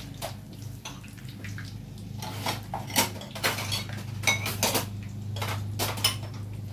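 Metal utensils and dishware clinking against a cooking pot and a metal serving tray: a quiet first two seconds, then a string of sharp, irregular clinks, over a low steady hum.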